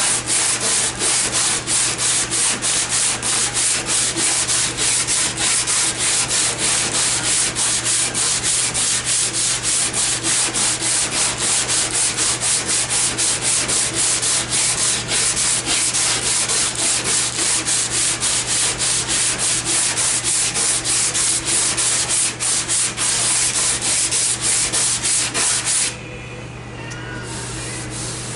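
Hand sanding of a 1974½ MGB's dog leg body panel with a sandpaper-wrapped block: quick back-and-forth strokes, about three a second, that stop a couple of seconds before the end.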